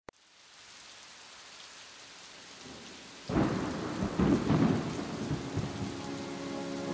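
Steady rain hiss fading in, then a clap of thunder about three seconds in that rumbles on for a second or two before settling back into the rain.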